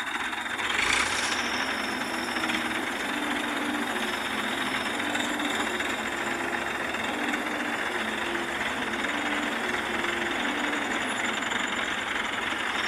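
Mobile crane's diesel engine running steadily, with a faint low tone that comes and goes.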